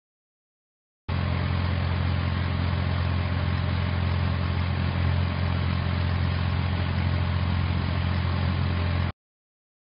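An engine running steadily at idle with a low, even hum, starting about a second in and cutting off abruptly shortly before the end.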